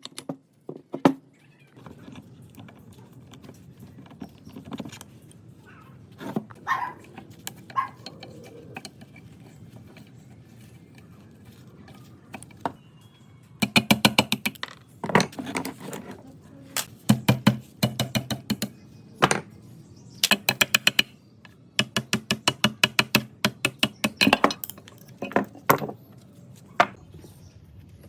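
Metal parts and tools clicking and clattering, with several runs of rapid sharp clicks in the second half, over a steady low hum.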